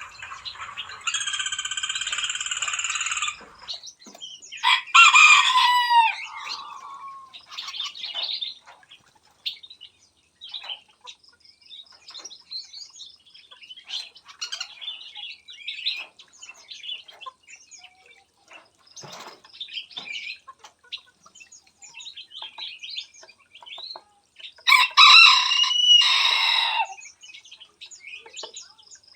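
A rooster crows in loud, drawn-out calls, about a second in, again at about five seconds and once more near the end. Many small birds chirp and twitter throughout.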